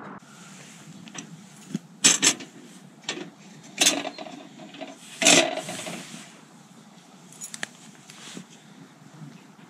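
Old kerosene lantern being opened by hand: its metal frame, hinged top and glass globe clink and scrape, with several sharp clicks, the loudest about two, four and five seconds in.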